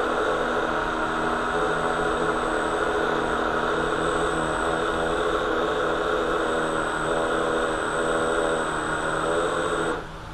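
Electric motor of an RC hydroplane spinning its flex shaft on the bench, out of the water: a steady run with a thin high whine, which cuts off near the end.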